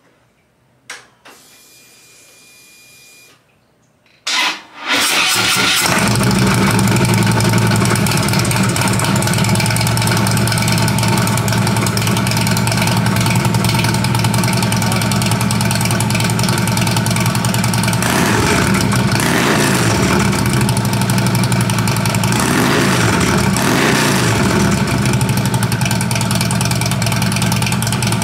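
A Harley-Davidson Twin Cam 103 V-twin is started with the electric starter, catches about five seconds in, and settles into a steady loud idle. It runs through a new Bassani 2x2 header that deletes the catalytic converter, and S&S slip-on mufflers. Past the middle the throttle is blipped in two short sets, the revs rising and falling.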